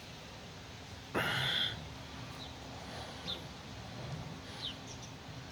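Backyard birds at a feeder: a brief harsh, raspy call about a second in, then three faint, short high chirps spaced about a second apart.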